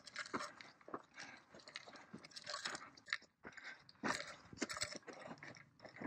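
Crunchy food being chewed close to the microphone: irregular, crackly bites and crunches.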